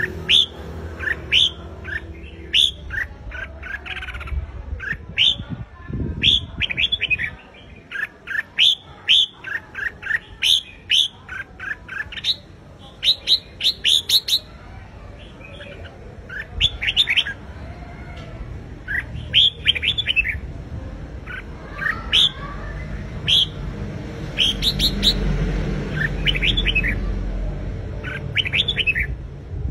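Red-whiskered bulbul singing its loud fighting song: quick phrases of short, bright whistled notes, broken by short pauses. A low rumble runs under the song about three-quarters of the way through.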